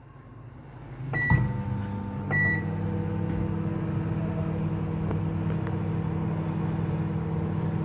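Microwave oven beeps once as it is started, clicks on and runs with a steady hum on a one-minute heating cycle; a second short beep comes about a second later.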